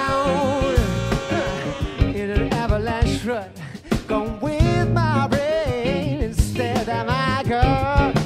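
Live funk and soul band playing an instrumental passage: a horn section of saxophones and trumpet plays a melodic riff over electric bass, guitar, keyboard and drums. The band drops back briefly about three and a half seconds in.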